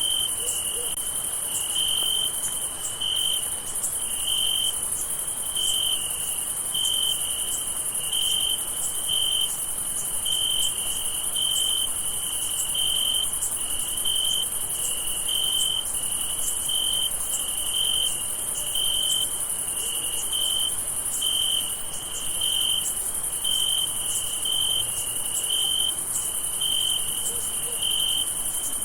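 Crickets chirping: one high chirp repeats in an even rhythm, about three chirps every two seconds, over a continuous higher-pitched insect trill.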